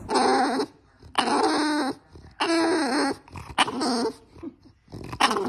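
A dog vocalizing: four calls of under a second each, their pitch bending up and down, then a shorter call near the end.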